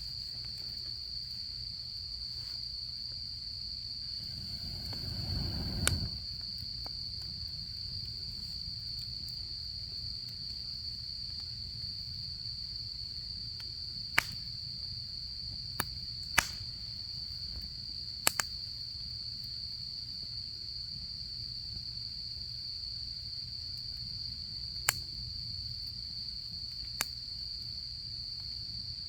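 Autumn crickets chirring in a steady, continuous high trill, over a campfire that gives a few sharp isolated pops and crackles. A brief low rustling swell comes about five seconds in.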